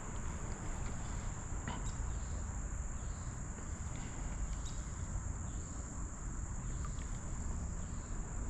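Insects trilling steadily at one high, constant pitch, over a low outdoor rumble.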